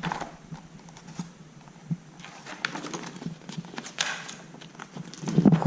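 Handling sounds of a poster being taken out and looked at: paper rustling with scattered small taps and clicks.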